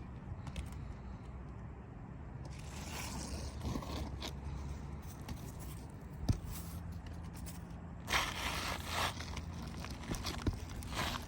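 Asphalt roofing shingles scraping and rustling as a replacement shingle is worked into place, with scattered small clicks and one sharp knock about six seconds in.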